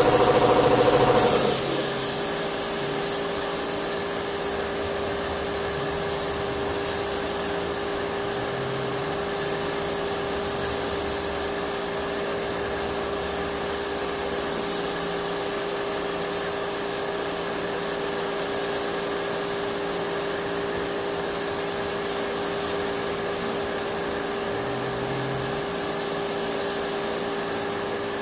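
Spray-painting equipment running: a steady mechanical drone with a constant hum and a hiss of air from the compressed-air spray gun and its air supply. About a second and a half in, a louder, higher-pitched running sound drops away, leaving the steadier drone.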